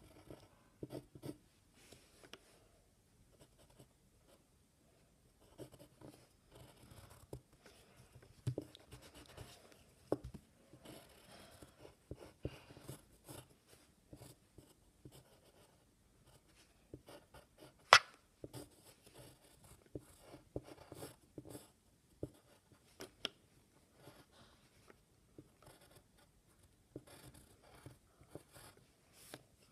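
Pencil scratching on paper in short, irregular drawing strokes, with pauses between runs of lines. One sharp tap stands out, louder than everything else, about two-thirds of the way through.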